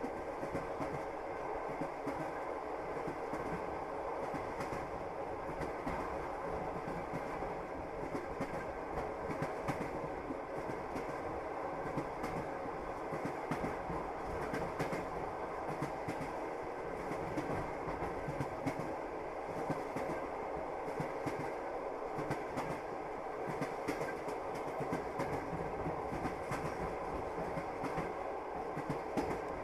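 A moving train's wheels running over the rails: a steady rolling rumble with frequent irregular clicks and knocks from the wheels over rail joints.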